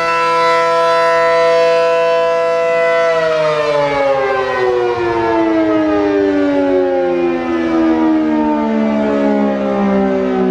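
ACA Allertor 125 electromechanical outdoor warning siren sounding a short test blast. It holds a steady top pitch, then about three seconds in the power cuts and it winds down, its pitch falling steadily.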